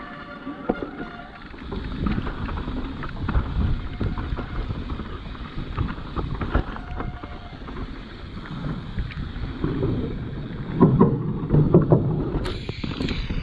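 Mountain bike descending a dirt trail: a steady rumble of tyres and suspension over the ground, with irregular knocks and rattles and wind on the microphone. Near the start, the rear freehub buzzes as the bike coasts. About 11 seconds in, the rumble grows rougher and louder over a bumpier stretch.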